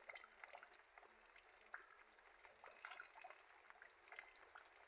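Faint rain falling, with scattered light drips and splashes of water.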